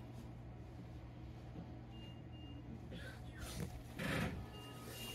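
Faint pairs of short, high electronic beeps, repeating about every two and a half seconds, over the low hum of a train stopped at a platform. A brief rushing hiss comes about four seconds in.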